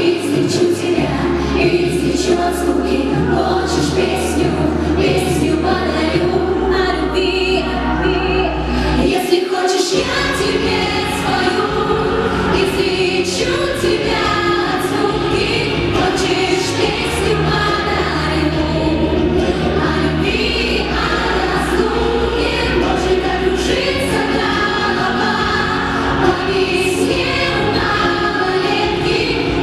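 A song sung by several voices together over instrumental backing, with held bass notes and a regular beat.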